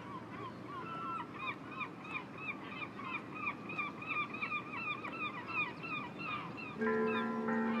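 A flock of waterbirds calling, many short calls overlapping at several a second. About seven seconds in, steady ringing bell-like music tones come in over them.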